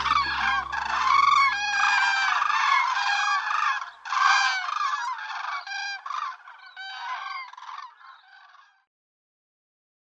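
A flock of common cranes calling, many loud overlapping calls, over the last low notes of a music track that die away in the first few seconds. The calls thin out and fade to silence about nine seconds in.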